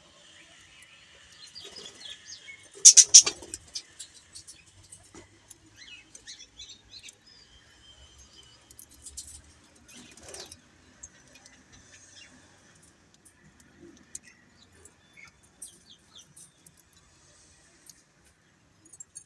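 Budgerigars chirping and chattering in short, scattered calls, with a few sharp clicks; the loudest burst comes about three seconds in.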